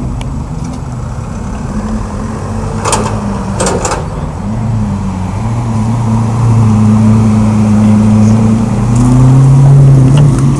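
Lamborghini Aventador's V12 engine running at low revs as the car drives slowly past, a steady low note that grows louder and peaks near the end.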